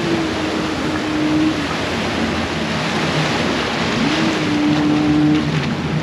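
Water-ride rapids rushing and churning around a round river raft, a steady loud wash of moving water. Twice a drawn-out tone rises and then holds level for about a second and a half, once at the start and again about four seconds in.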